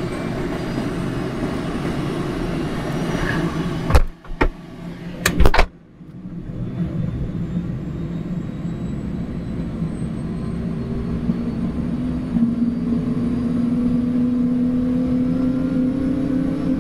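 Arriel 2B1 turboshaft engine of an Airbus AS350 B3 helicopter running up during its engine start, with a slowly rising whine in the second half. A few sharp clicks come about four to five and a half seconds in, followed by a brief dip in the sound.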